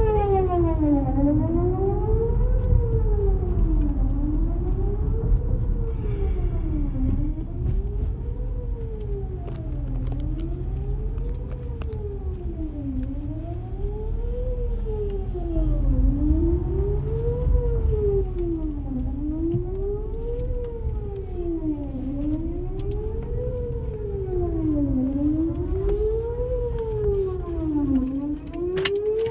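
Whelen WPS 4008 electronic outdoor warning siren on a fixed, non-rotating mount, sounding a wail whose pitch sweeps smoothly up and down about every three seconds at a steady loudness. It is heard from inside a car, with a low rumble underneath.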